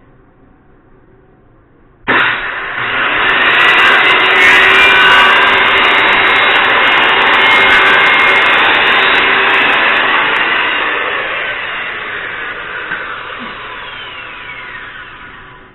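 Electric power saw starting up suddenly about two seconds in and running loudly through a cut in the frame's backer board, then switched off and winding down, its whine falling in pitch as it slows near the end.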